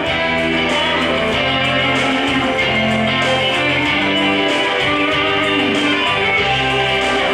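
The instrumental introduction of a song, with sustained bass notes changing about once a second under a melody and a steady beat.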